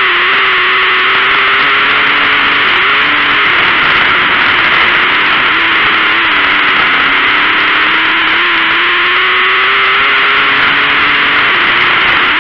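Dirt-track race car's engine heard from an onboard camera, loud and distorted, with wind and track noise. Its pitch dips and climbs again about three times, around 3, 6 and 11 seconds in, as the throttle comes off and back on through the turns of the oval.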